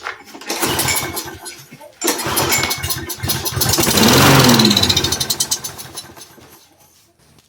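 Troy-Bilt push mower's small engine being pull-started: a first pull, then on the second pull it catches, runs up in pitch and then winds down and dies away over a few seconds. It fires but won't keep running.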